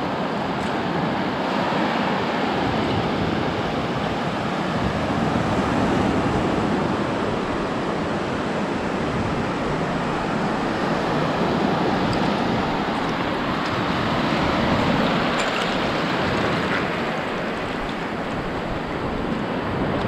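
Small surf washing up on the shore, a steady wash of water that swells and eases every few seconds.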